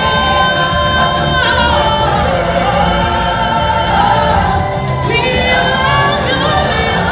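Show music with voices singing, sung as a choir.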